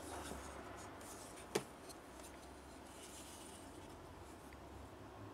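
Faint handling of small wooden pieces, with soft rubbing and one sharp click about a second and a half in as the parts knock together.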